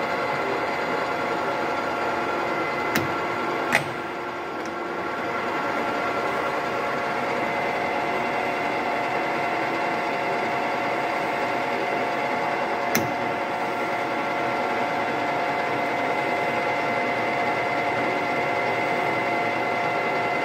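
Colchester Student gap-bed lathe running: a steady mechanical hum with a whine of several steady tones. Sharp clicks come about 3 and 4 seconds in and again around 13 seconds, and the sound dips briefly after the second click before building back up.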